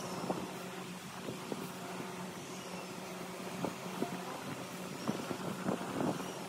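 A steady low hum with a faint held tone, and scattered light clicks and taps a few times a second.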